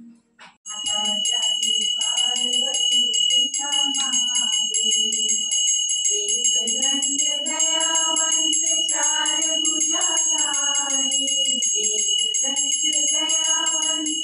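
Music starts about a second in: a song with a singing voice over a steady, fast jingling bell beat.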